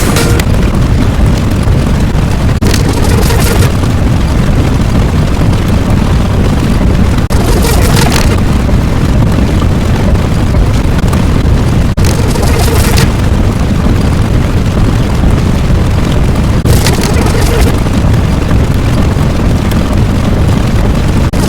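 Loud, continuous low rumbling sound effect with a hissing surge about every four to five seconds.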